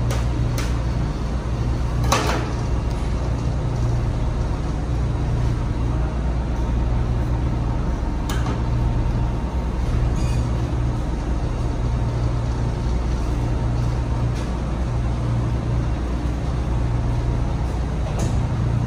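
Steady low machinery drone, with a few sharp knocks of a knife against a stainless-steel work table; the clearest knock comes about two seconds in and another about eight seconds in.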